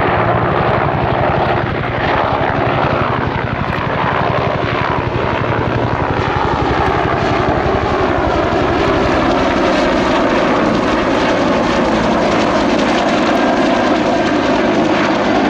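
Bell UH-1H Huey helicopter flying, its two-bladed main rotor beating in a fast, even rhythm over the steady sound of its Lycoming T53 turbine engine.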